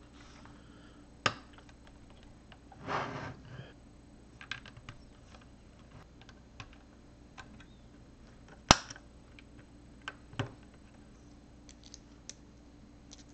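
LEGO plastic bricks being handled and pressed together: scattered small clicks and ticks, with sharp snaps about a second in and about two-thirds through (the loudest), another near the end, and a brief rustle of parts about three seconds in.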